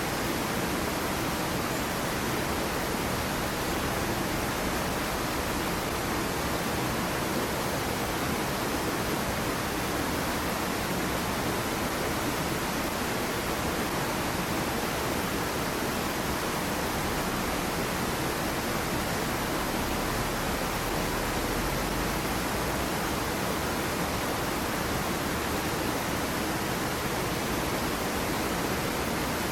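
Small waterfall on a stream: water falling and rushing in a steady, unbroken wash.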